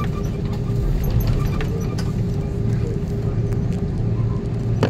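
Cabin noise of an Airbus A330-300 taxiing on its Rolls-Royce Trent 772B engines at idle: a steady low rumble with a constant hum. A few small clicks, and a sharp click near the end.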